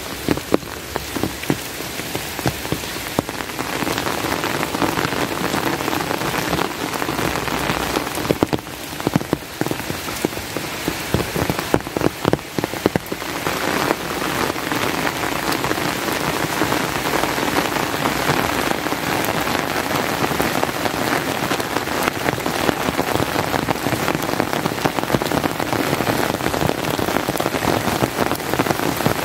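Steady rain falling, with many close drops striking as sharp ticks.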